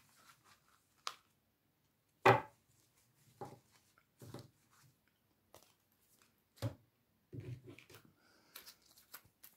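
Hands handling a deck of fortune-telling cards on a table: scattered soft taps, knocks and rustles, the loudest a single knock about two seconds in, with a cluster of handling noises near the end.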